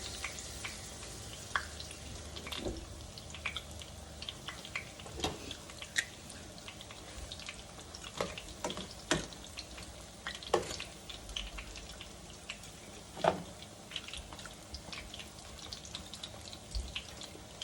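Hands being washed under a kitchen tap: running water for the first second or two, then irregular drips and sharp pops over the steady sizzle of cauliflower frying in hot oil.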